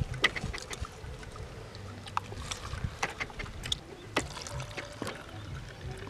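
Date palm sap poured from a plastic jug into a small plastic cup, with scattered light clicks and taps as the plastic vessels are handled.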